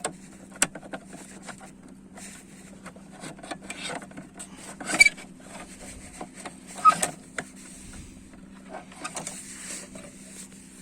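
Plastic clicks and knocks as an engine control unit (DME) is unlatched and pulled out of its plastic electronics box, with two louder knocks about five and seven seconds in. A steady low hum runs underneath.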